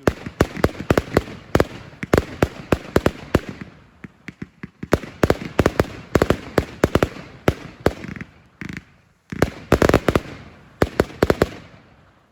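Fireworks going off: a dense, irregular string of sharp bangs, thinning briefly about four seconds in and again around nine seconds, then stopping abruptly at the end.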